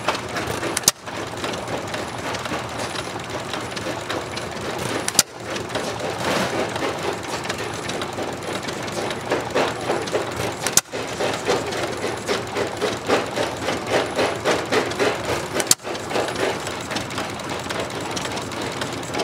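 Old stationary engines running with a fast, regular beat. Sharp clicks about every five seconds are each followed by a brief drop in level.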